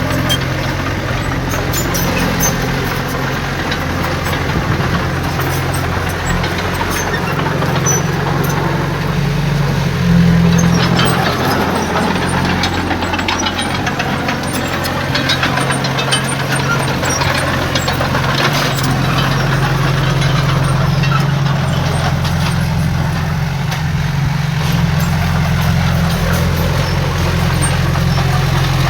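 Heavy diesel earthmoving machinery running steadily: a low engine drone with scattered clicks and rattles, briefly louder about ten seconds in.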